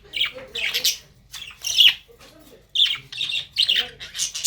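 A flock of small Australian parrots, cockatiels among them, squawking: a string of short, harsh, high calls, several overlapping.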